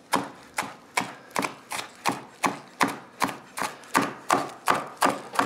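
Chef's knife chopping green onions finely on a plastic cutting board: a steady run of sharp knocks, about three strokes a second.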